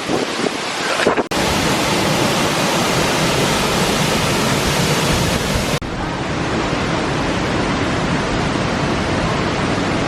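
Waterfall's steady rush of falling water. The sound changes abruptly a little over a second in and again about six seconds in.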